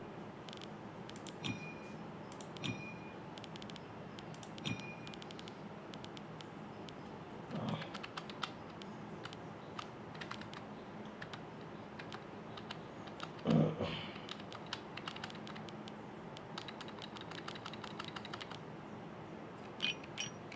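Typing and clicking on a computer keyboard: a run of quick key clicks throughout, with a couple of louder knocks partway through, the strongest just past halfway.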